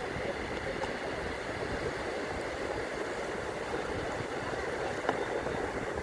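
Sea surf breaking and washing up the beach: a steady rushing noise.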